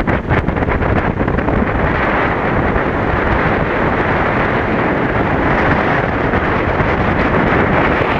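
Gale-force wind of about 30 to 35 knots buffeting the microphone in a loud, steady rush.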